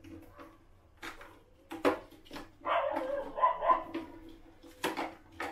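A dog barking and yelping, loudest for about a second and a half around the middle, with a few sharp plastic clicks as a rubber washer is fitted onto the base of a new toilet syphon.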